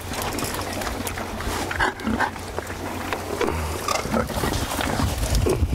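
A group of purebred Berkshire pigs grunting as they crowd in to feed, with many short scattered grunts and knocks.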